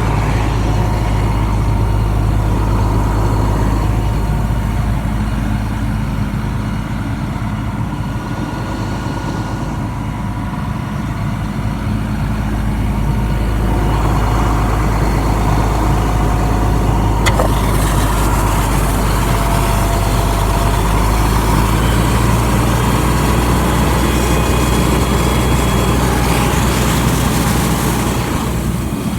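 A fire engine's diesel engine running steadily while driving its fire pump, a low, even drone. About halfway through a sharp click sounds and a loud rushing hiss joins the engine, lasting until just before the end.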